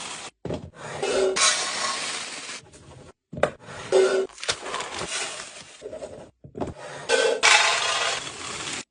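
Rustling and rubbing of grocery packaging and containers being handled while food is put away in a refrigerator. It comes in noisy bursts broken by several sudden silences.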